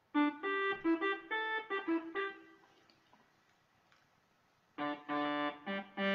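Akai EWI 5000 electronic wind instrument played on its preset 69 synth voice: a quick run of short notes lasting about two seconds, a pause of about two seconds, then another run of notes near the end.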